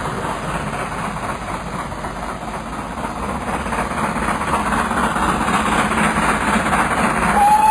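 GWR Castle class steam locomotive: a steady rushing noise that slowly grows louder, then its whistle starts near the end, one steady tone.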